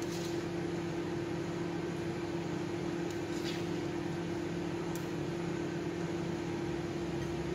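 Steady electric hum of a kitchen fan. A plastic spoon scrapes faintly in the wok a couple of times, midway through and again about five seconds in.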